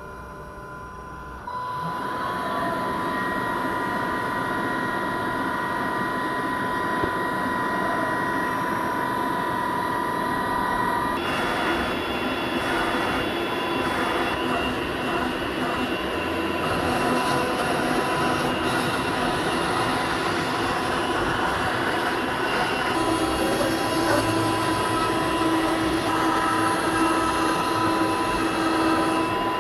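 Home-built CoreXY CNC router milling wood: a steady high spindle whine over the noise of the end mill cutting. The sound gets louder after about a second and a half, and the pitch of its tones changes about a third of the way in and again later.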